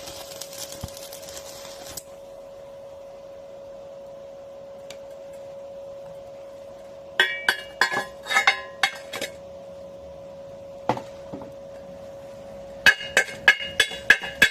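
Battery-powered arc welder: the crackling hiss of the arc cuts off about two seconds in, leaving a steady whine from the machine. Later come two bursts of sharp metallic clinks and taps on the steel.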